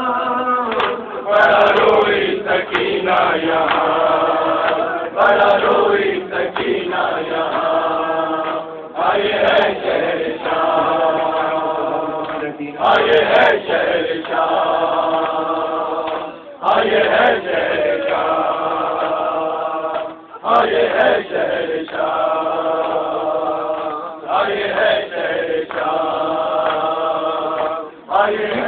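A male reciter chanting an Urdu nauha (mourning lament) in long sung phrases, with a group of mourners' voices joining in. Sharp strikes of hands beating chests (matam) run under the chant.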